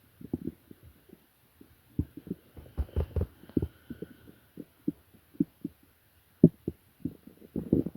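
Human stomach gurgling: irregular short, low pops and bubbling, with a cluster of louder gurgles about three seconds in and more near the end.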